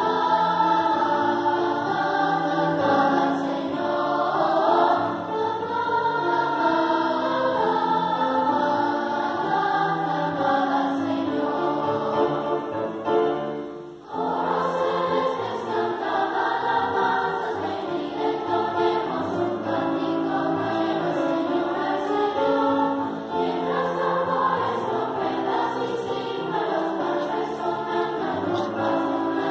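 Children's choir singing, with a brief break about halfway through before the next phrase starts.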